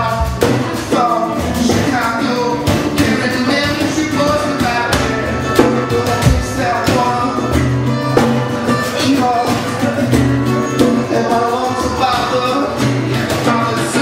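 Live acoustic guitar strumming with a man singing, accompanied by hand-played djembe strikes.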